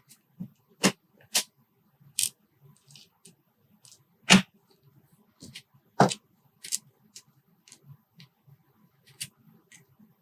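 Irregular sharp clicks and taps of small metal lock parts, the pins and wafers of a disassembled Kwikset rim cylinder, being handled with tools on a work surface, with a few louder clicks spread through.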